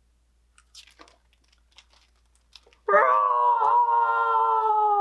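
Paper pages of a picture book rustling and crinkling as they are turned. About three seconds in, a woman lets out one loud, long vocal roar that slowly falls in pitch.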